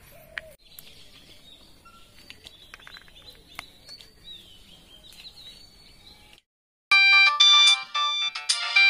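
Faint birds chirping over quiet outdoor ambience, then a short break and, about seven seconds in, a Symphony L25i feature phone's ringtone starts loudly: a quick melody of electronic beeping notes.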